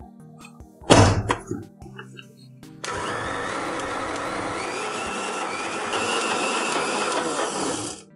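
Electric mixer grinder wet-grinding soaked urad dal in its steel jar into idli batter: it starts about three seconds in, runs steadily for about five seconds and stops near the end. A sharp knock comes about a second in.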